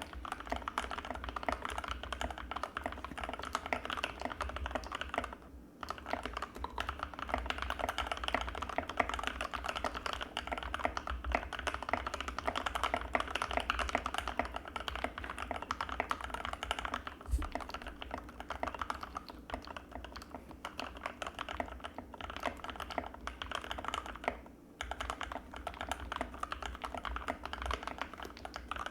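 Fast, continuous typing on an Anne Pro 2 mechanical keyboard with Gateron Red linear switches, a dense stream of key strokes that pauses briefly twice, once about five seconds in and again near the end.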